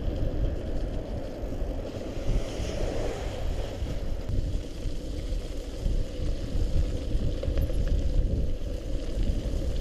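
Wind buffeting the microphone of a moving mountain bike's camera, mixed with the rumble of knobby tyres rolling over a slushy, snowy gravel trail. A steady, uneven rush that stays mostly low.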